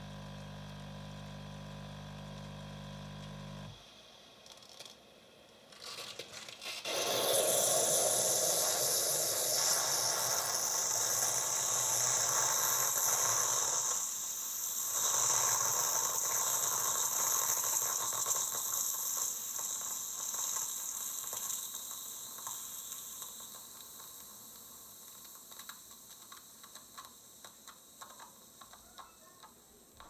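Bosch Tassimo Happy coffee machine's pump humming steadily as milk pours into the glass, cutting off about four seconds in. About three seconds later a loud steam hiss blows out of the machine as the milk pod cycle ends, then slowly fades, with a few faint ticks near the end.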